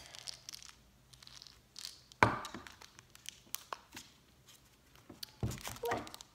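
Plastic candy wrappers crinkling and rustling as packets are handled, with scattered light taps and one sharp knock about two seconds in.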